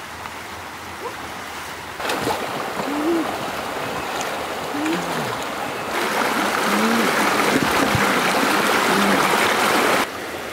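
Shallow rocky stream rushing and gurgling over stones, growing louder in steps about two and six seconds in and dropping back near the end.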